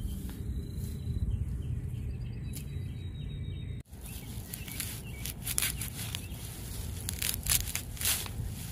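Outdoor ambience in grassy ground: a steady low rumble with a few faint high chirps in the first half. After a sudden cut about four seconds in come a run of sharp rustling clicks close to the microphone.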